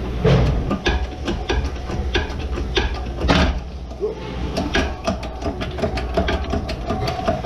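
Shop press forcing a front-wheel-drive wheel bearing into a steering knuckle, with a run of irregular sharp clicks and ticks as the press works and the bearing is driven in. A steady low hum runs underneath, and there is a short louder scrape a little past three seconds in.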